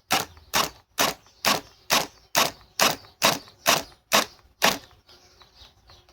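Ridgid R861152 high-torque drill stalled while backing out a fastener: the motor kicks in short bursts about twice a second, about a dozen times, then stops a little before five seconds in. This is the drill's overload protection pulsing and then shutting the tool off.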